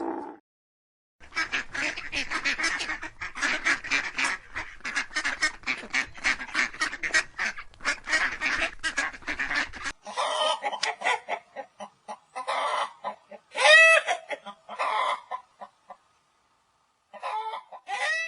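A flock of waterfowl calling: first a dense run of rapid, overlapping calls, then from about ten seconds in separate calls with pauses between them, and a last few calls near the end.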